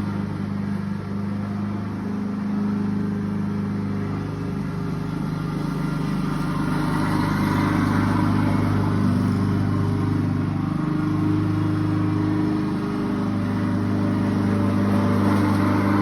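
Lawnmower engine running steadily, with slight wavers in its pitch.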